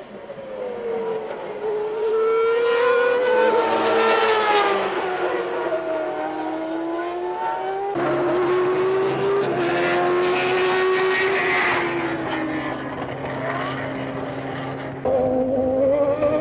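Formula One car engines at high revs, their pitch sliding down in long falls as the cars pass or brake. The sound changes abruptly about halfway through and again near the end, where a higher engine note picks up and rises.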